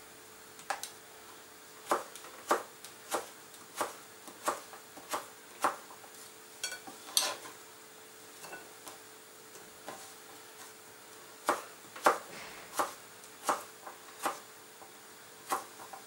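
Chef's knife slicing a cucumber into thin sticks on a plastic cutting board: each cut ends in a sharp knock of the blade on the board, about every two-thirds of a second, in two runs with a pause in the middle. A faint steady hum lies underneath.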